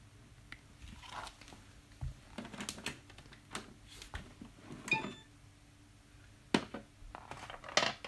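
LG Hom-Bot robot vacuum moving about in its search mode: irregular clicks, knocks and crinkly rattles, a few louder knocks in the second half, over a faint steady hum.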